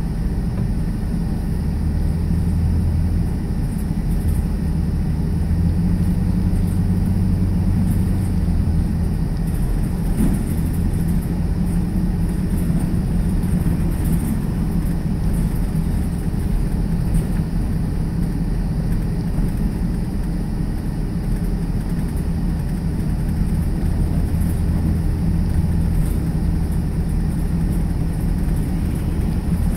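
Car interior driving noise: a steady low rumble of engine and tyres, heard from inside the cabin, with a low hum that swells a little now and then.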